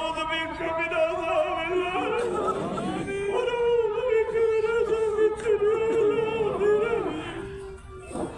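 A man's voice chanting a supplication for rain in long, drawn-out, wavering high notes, heard through a headset microphone, falling away briefly just before the end.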